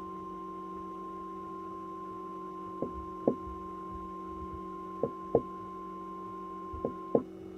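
NOAA Weather Radio 1050 Hz warning alarm tone, the attention signal that comes before a warning broadcast. It is one steady high beep that cuts off about seven seconds in, over a steady low hum. Three pairs of sharp clicks break in during the second half.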